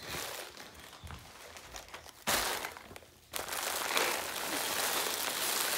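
Wrapped Halloween candy being poured out of a pillowcase, a steady crinkling and clattering of wrappers that starts about three seconds in.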